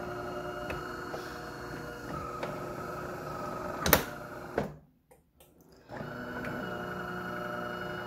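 DeLonghi Caffè Corso espresso machine buzzing steadily as it heats up for steam while its indicator light blinks. The buzz comes in two runs of a few seconds, with about a second's pause between them. A sharp click, the loudest sound, comes just before the first run stops.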